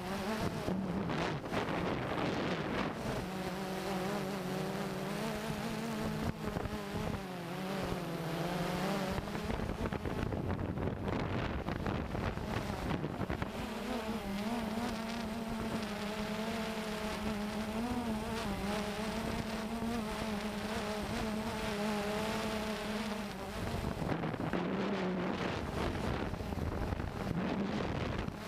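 Cheerson CX-20 quadcopter's propellers buzzing in flight, the pitch wavering as the throttle changes; the buzz comes in twice, a few seconds in and again near the middle, for several seconds each time. Gusty wind on the microphone throughout.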